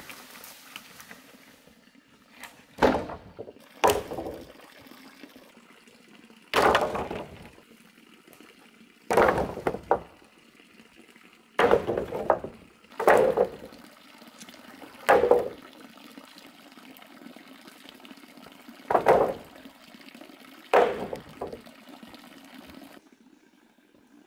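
Hollow bamboo poles dropped onto a pile, clattering about nine times at irregular intervals over a faint steady hum.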